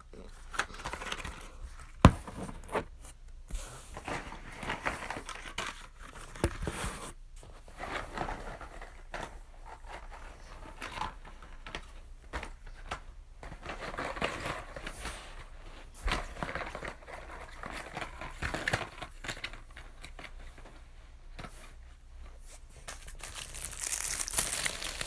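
Fireworks' packaging crinkling and rustling as the fireworks are handled and set down in a row, with a sharp knock about two seconds in and louder, hissier rustling near the end.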